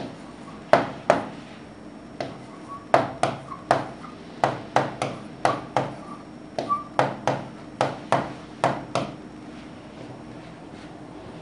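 A pen tapping and knocking on an interactive display panel with each writing stroke: about twenty sharp, irregular taps, stopping a couple of seconds before the end, over a faint steady hum.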